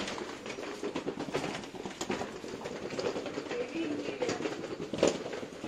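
Busy street ambience: background chatter of passers-by with scattered knocks and clatter, the loudest knock about five seconds in.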